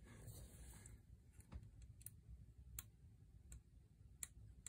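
Near silence with a few faint, scattered clicks.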